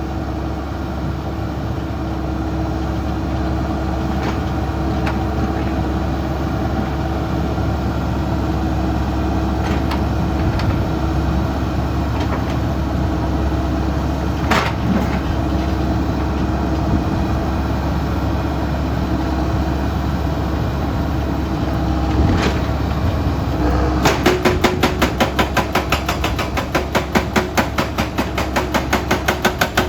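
Excavator diesel engines running steadily with a held whine, broken by a few single knocks. About three-quarters of the way through, a fast, even clatter of several beats a second starts up.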